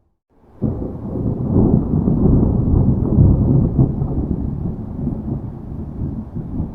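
Thunder rumbling: after a brief silence, a loud, deep rumble starts abruptly about half a second in, swells over the next few seconds, then slowly eases off.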